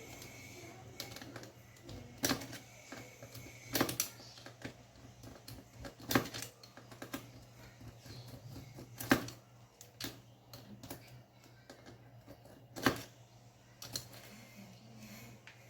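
Sharp clicks and taps of a laptop being taken apart: tools and small parts knocking on its plastic case at irregular intervals, the loudest about five times a few seconds apart, over a faint steady hum.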